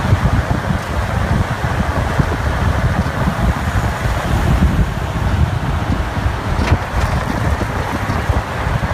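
Wind buffeting the microphone over the steady rumble of a tow truck and its towed car rolling along at freeway speed.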